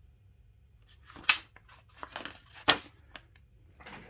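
A picture-book page being turned by hand: a few papery rustles and flaps, the two sharpest about a second and a half apart.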